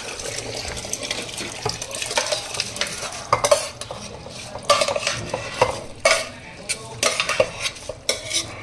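Soaked rice being scooped with a metal spatula from a bowl into a large aluminium pot of hot chicken stock. The spatula scrapes and knocks against the bowl and pot rims again and again, mostly from about three seconds in, over a steady hiss from the hot stock.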